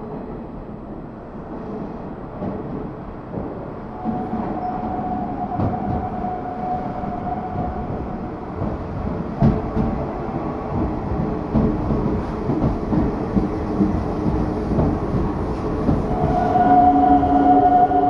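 Nishitetsu 6050 series electric train pulling into the platform, its rolling noise and wheel clacks over the rail joints growing louder as it draws near and passes. A steady whine comes in about four seconds in, and a louder whine of several tones joins near the end.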